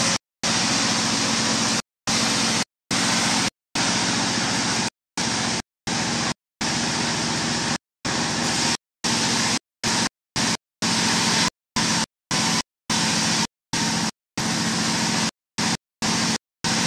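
Sawmill's red single-cylinder horizontal diesel engine running steadily, belt-driving the saw: a constant low hum with hiss above it. The sound cuts out to dead silence again and again, briefly and at irregular spacing, about once a second.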